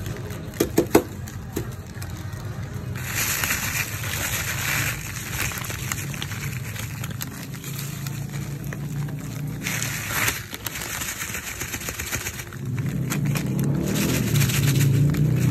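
Bagoong alamang (shrimp paste) bubbling and crackling in a steel pan as it boils down to reduce its liquid, over a steady low rumble that grows louder near the end. A few sharp clicks come in the first second, and near the end a plastic bag rustles as brown sugar is poured in.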